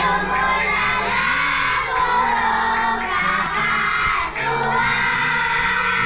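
A group of young children singing a children's song together in unison, moving between held notes.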